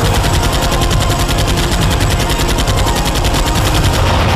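Machine-gun sound effect firing in a rapid, even burst of about a dozen shots a second over a low rumble, stopping near the end. It is dubbed over a toy foam-dart blaster.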